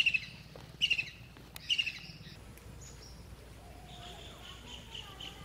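Birds calling: three loud, short chirps about a second apart, then a fainter, fast run of repeated notes from about four seconds in.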